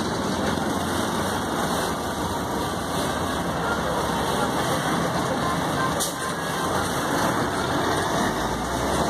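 Engine of a tourist road train running steadily, heard from inside its open-sided passenger car.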